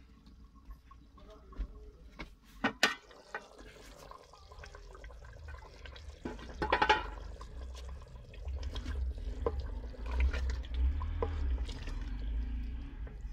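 Sharp clinks as the lid comes off an aluminium cooking pot, then a wooden spoon stirring the simmering potato curry gravy, liquid sloshing with light scrapes against the pot.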